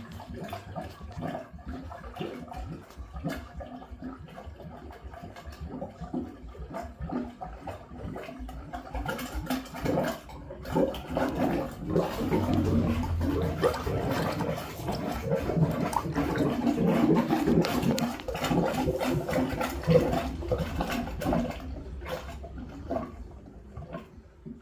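Shower drain and bathroom sink drain gurgling and bubbling while the kitchen garbage disposal drains. It builds up about ten seconds in and fades near the end. The gurgling is the sign of unvented drain lines.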